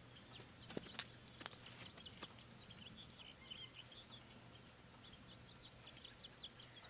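Faint small birds chirping in quick repeated notes, with a few faint clicks in the first couple of seconds.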